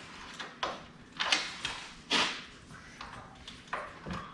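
Scattered sharp metallic clicks and knocks, about four of them, from hand tools and a motor-mount bolt being worked into the motorcycle frame.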